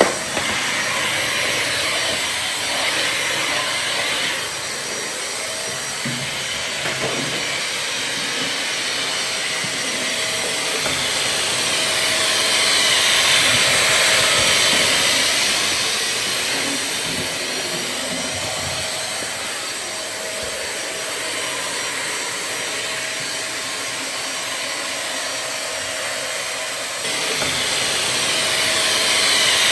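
Vacuum cleaner running steadily, a rushing hiss with a faint steady hum under it. It swells louder around the middle and steps up again abruptly near the end.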